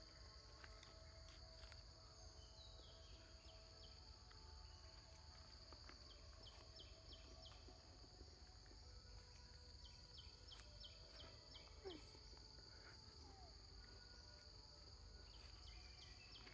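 Faint forest ambience: a steady high-pitched insect drone, with short runs of rapid chirps coming every few seconds over a low rumble.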